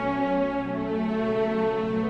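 Background music of long held notes that change slowly.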